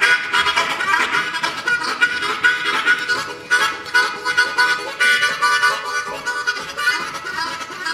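Harmonica played solo with the hands cupped around it, a continuous rhythmic riff of short repeated notes and chords.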